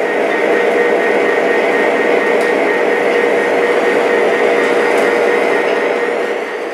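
Ross 24-inch O-gauge turntable's drive motor running as the bridge rotates, a steady hum with a held tone that eases off near the end.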